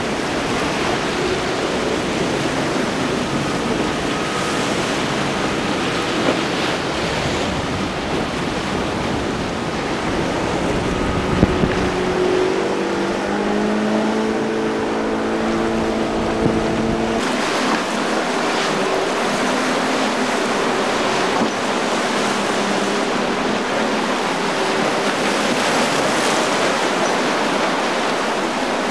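Outboard motors of small boats running at speed through choppy inlet water, under a steady rush of waves and spray. In the middle one engine's note stands out and climbs slightly for a few seconds before the sound changes abruptly.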